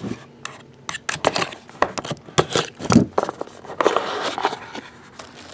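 Cardboard trading-card box being handled and opened: irregular clicks, taps and scrapes as the box is turned over and the inner box slid out.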